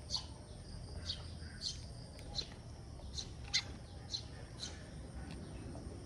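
Sparrows chirping at a feeder: short, sharp chirps, about ten of them, repeated every half second or so, over a faint steady low hum.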